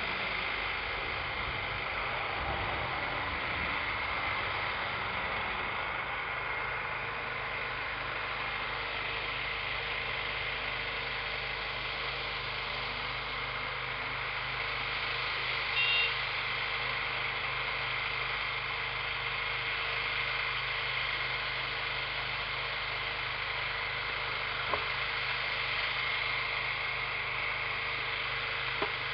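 Large agricultural spraying machine running steadily, its engine giving a constant hum under a steady hiss. Just past halfway there is one short high beep.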